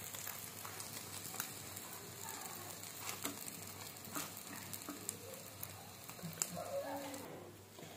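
Folded egg frying in oil on an iron tawa, sizzling steadily with scattered small pops of spattering oil. A metal spatula presses and shifts it on the pan. The sizzle cuts off shortly before the end.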